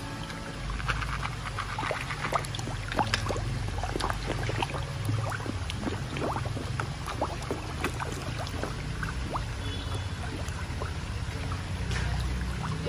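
Koi crowding and thrashing at the pond surface, splashing the water in many quick, irregular splashes, over a steady low rumble.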